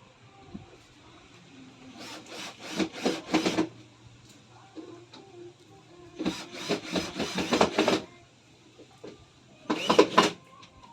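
Three bursts of quick, rough scraping strokes on wooden furniture parts, several strokes a second, the loudest burst near the end, during the assembly of a vanity table.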